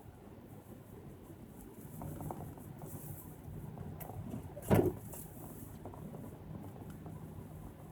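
Car driving, with a steady low rumble of engine and road noise, and a single short thump about four and a half seconds in.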